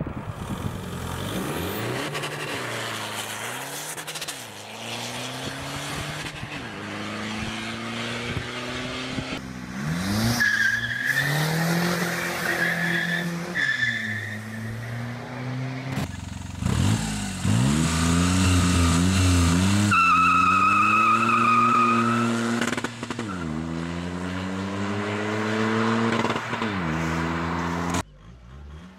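Tuned turbodiesel (TDI) cars accelerating hard through the gears, engine revs climbing and falling back at each shift, over several passes. A high steady squeal or whistle rides over the engine at times.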